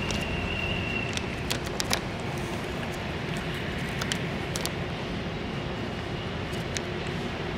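A cat licking soft food from a metal dish, with a few quick wet clicks in the first two seconds before it stops and sits up. These sit over a steady low rumble of background noise, and a thin high whine cuts off about a second in.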